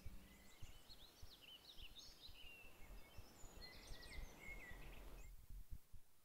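Faint birdsong, short chirps and trills over faint low background noise, fading out about five seconds in.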